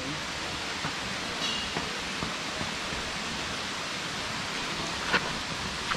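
Steady rush of flowing water, an even hiss with no rhythm, with a faint click about five seconds in.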